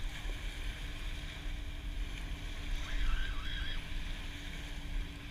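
Wind rumbling on the microphone over small waves washing onto the sand, with a faint steady hum underneath.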